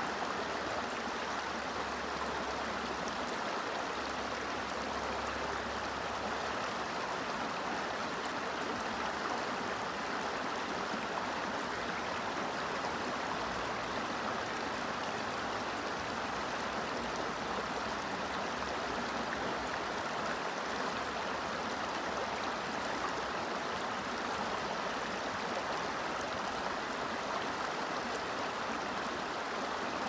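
A river flowing: a steady, even rush of water.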